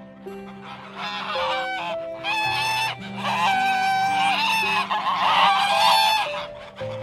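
Domestic geese honking: a run of loud, repeated calls that begins about a second in and goes on until shortly before the end, over soft background music.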